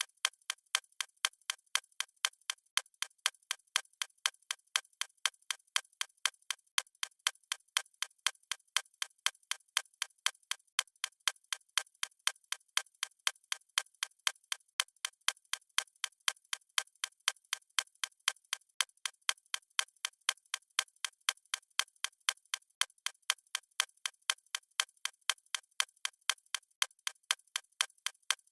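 A watch ticking, fast and perfectly even, with nothing else heard.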